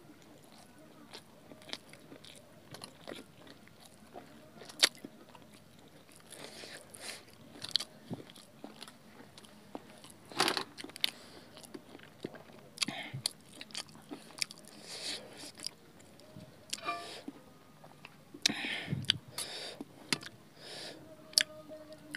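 Two people eating Maggi noodles by hand close to the microphone: irregular chewing and short mouth clicks and smacks, with no steady rhythm.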